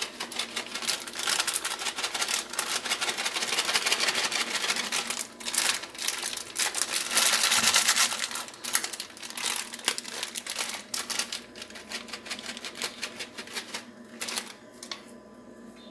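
Plastic packet of grated parmesan crinkling and crackling as it is shaken and squeezed to sprinkle the cheese over dough. A dense run of small clicks, loudest about halfway through, thins out near the end.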